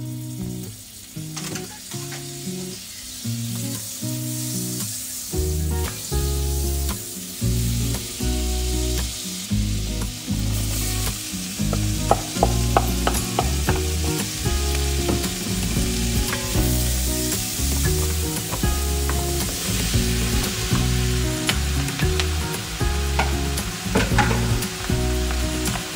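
Butter and oil sizzling in an enamelled cast-iron pot, the sizzle building over the first several seconds as the butter melts, with a few sharp clicks from about halfway. Background music with a steady low line plays underneath.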